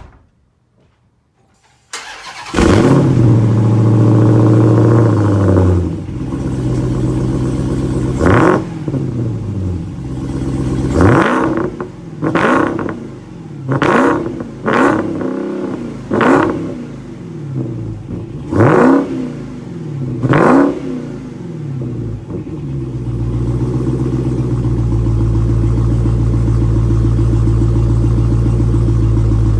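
Dodge SRT Hellcat's supercharged 6.2-litre Hemi V8 starting up about two seconds in and settling into a fast idle. It is then revved sharply about eight times, each rev climbing and falling back quickly. Near the end it holds a steady, louder drone.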